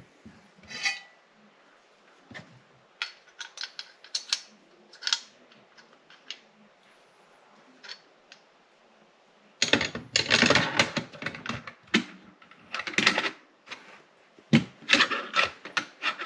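Metal rifle parts being handled, clicking, scraping and clattering. Scattered light clicks at first, then a denser, louder run of clattering from about ten seconds in.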